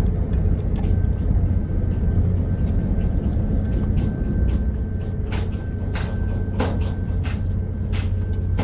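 A steady low engine rumble, with scattered short clicks or knocks over it.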